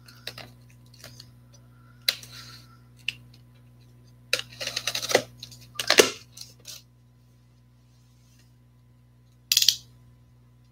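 Cardboard box being opened by hand: scattered short rustles and scrapes of the lid and flaps, a sharp knock about six seconds in, then a brief rasp near the end.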